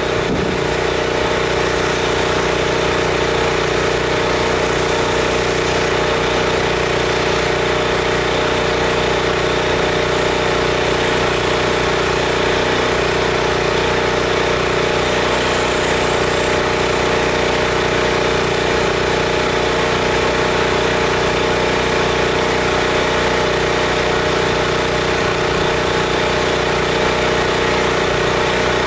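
Pressure washer's gas engine running steadily, driving the pump while the wand is spraying.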